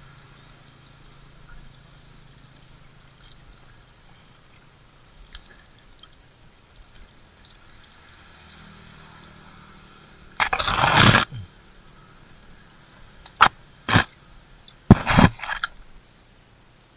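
Water splashing as a hand landing net is scooped through shallow pond water: one long splash about ten seconds in, then two short sharp clicks and a second, shorter splash.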